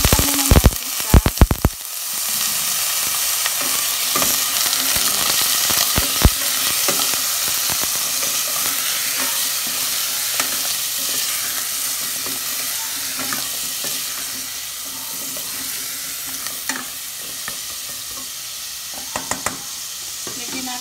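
Cubes of squash sizzling as they hit hot oil with sautéed garlic and onion in a stainless steel pot, with a quick clatter of knocks in the first two seconds as they tumble in from a metal strainer. After that a steady sizzle while they are stirred with a ladle, with occasional knocks against the pot and the sizzle slowly growing quieter.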